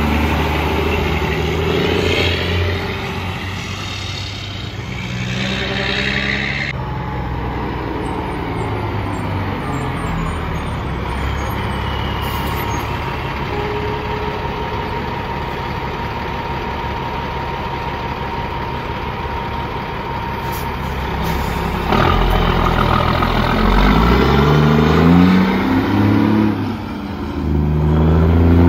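Semi-truck diesel engines pulling away from a stop, the pitch climbing and stepping up as they shift through the gears, with a steadier stretch of engine running in between. The sound changes abruptly twice, and the second truck starts accelerating about three-quarters of the way in.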